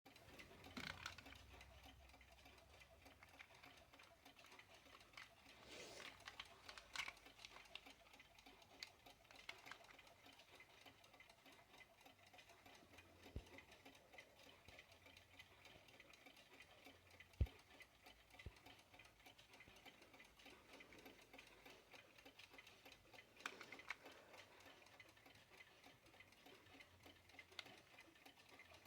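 Westclox quartz travel alarm clock ticking faintly, with a few soft knocks and one sharp click a little after halfway.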